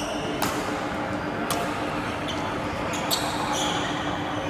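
Badminton rally: rackets strike the shuttlecock with sharp clicks about once a second. Short shoe squeaks on the court floor come a little after three seconds in.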